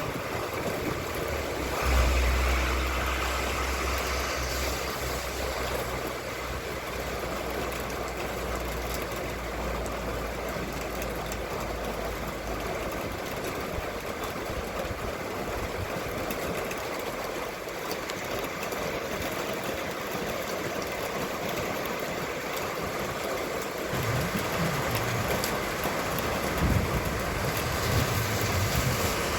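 Steady rain hiss with a low vehicle engine rumble from about two seconds in to about thirteen seconds. Near the end, gusts of wind buffet the microphone in low thumps.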